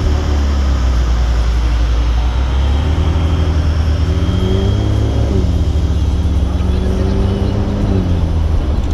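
Car engine idling close by with a deep steady rumble. Its pitch climbs slowly and drops back twice, about five and eight seconds in.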